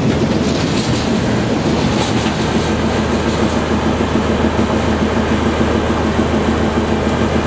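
Passenger coaches of a diesel-hauled train rolling past and away, with a steady rumble and steel wheels clacking over the rail joints.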